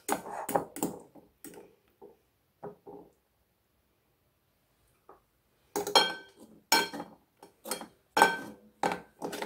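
A metal fork and spoon clink and tap against a cut-glass bowl as cookies are turned in jam and lifted out. A run of light clinks gives way to a pause of a couple of seconds, then louder, ringing clinks follow in the second half.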